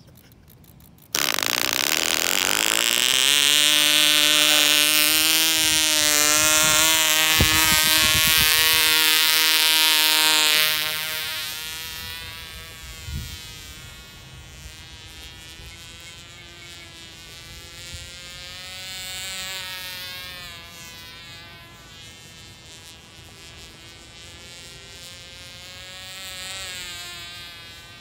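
Tiny .020 two-stroke glow engine of a model airplane, running at a high-pitched buzz. It starts loud about a second in and rises in pitch over the next two seconds, then holds steady close by. After about ten seconds it fades to a distant buzz that swells and falls as the plane flies around overhead.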